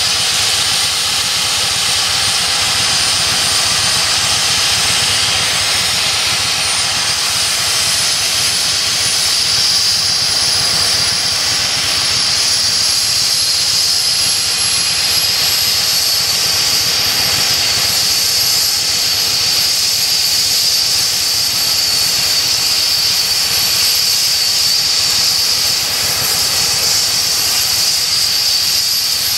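Sikorsky S-76 air ambulance helicopter running on the ground with its rotor turning: a steady, loud turbine whine over the rotor noise. About seven seconds in, the whine rises in pitch as the engines speed up.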